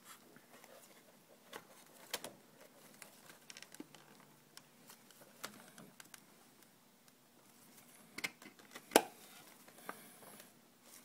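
Scattered light clicks and taps of a motorcycle headstock cover being handled and pressed back into place over the upper triple clamp, with the sharpest click about nine seconds in.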